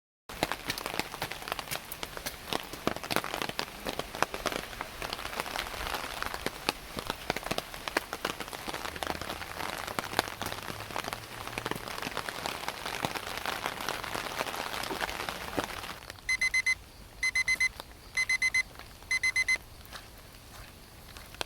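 Rain falling and pattering on surfaces during a typhoon, a dense crackle of drops. Near the end the rain drops away and an electronic alarm clock beeps in four short bursts.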